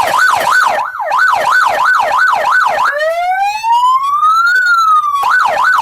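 Loud electronic car siren through twin truck-mounted speakers, running a fast yelp of about three rising-and-falling sweeps a second. About three seconds in it switches to one slow rising wail, then returns to the yelp near the end.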